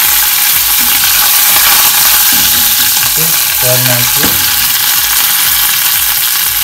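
Curry leaves, dry red chillies, cumin and mustard seeds sizzling and spluttering in hot coconut oil: the tempering (tadka) for dal, a loud, steady, high hiss.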